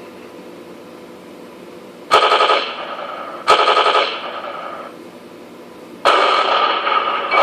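Machine-gun sound effect from a Heng Long KV model tank's TK-22 sound unit, played through its small speaker: three short rattling bursts, about two, three and a half, and six seconds in, each fading out after about half a second.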